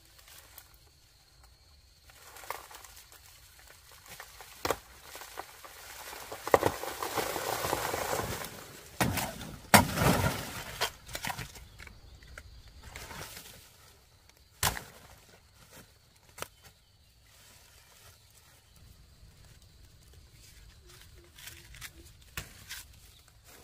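Dry banana leaves and stalks rustling and crackling as a bunch of bananas is handled and cut down by hand. There is a longer stretch of rustling in the middle and a handful of sharp snaps or knocks spread through it.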